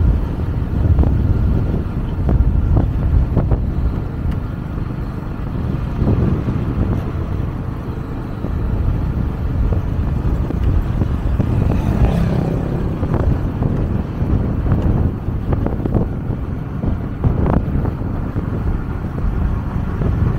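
Motorcycle riding along the road: the engine running under heavy wind buffeting on the microphone, with a brief louder swell about twelve seconds in.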